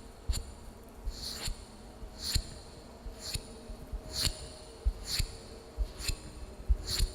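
Tapping on a wooden lid at a slow, even pace of about one tap a second. Each tap is a sharp knock with a brief bright ring.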